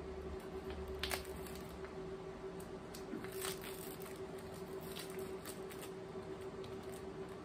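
Faint rustling and a few light clicks of a small potted plant being handled and turned, its leaves and pot brushing against the hands, over a steady hum.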